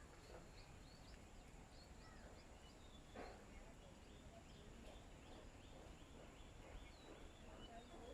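Faint, rapid short chirps of small birds at a feeding spot, over a steady background hiss, with one brief louder sound about three seconds in.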